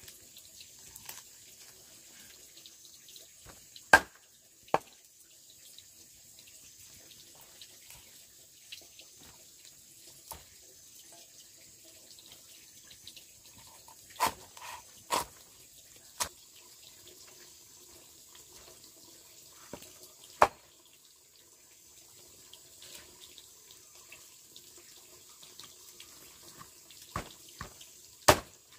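Water trickling faintly, with a sharp knock or clink every few seconds.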